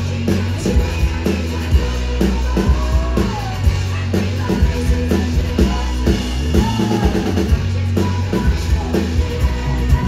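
A woman singing with a hard-strummed acoustic guitar, amplified live. The strums fall in a steady, driving rhythm.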